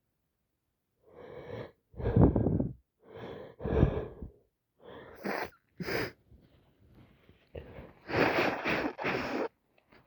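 A person with a heavy, congested head cold sneezing several times in a row, with short sniffs between the sneezes.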